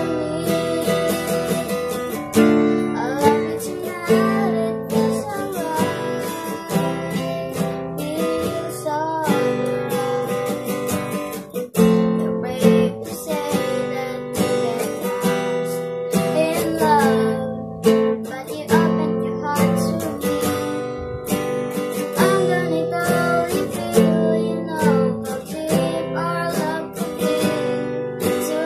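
Acoustic guitar strummed in a steady rhythm, with a boy singing over it at times.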